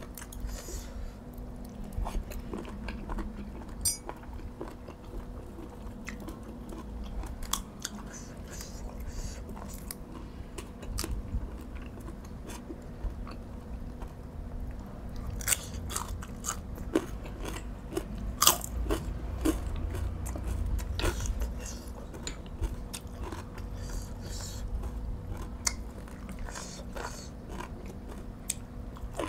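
A person chewing and crunching a meal of boiled field snails and spicy green-bean salad with fresh vegetables, with many short sharp clicks and smacks throughout.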